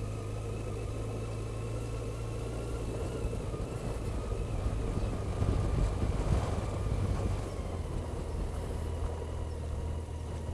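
Motorcycle engine running steadily at low speed, with wind and road noise that swells a little about halfway through.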